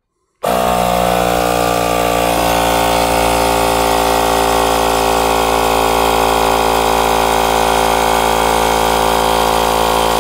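Portable inflator's compressor switching on about half a second in and running steadily, pumping a closed air-suspension line up past 100 PSI.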